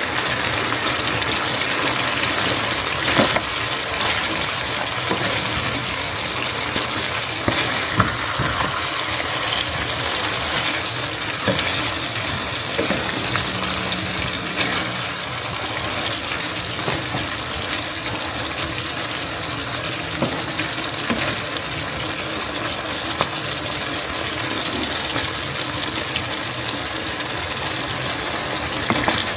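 Steady hissing kitchen noise of cooking, with a few scattered clicks and knocks.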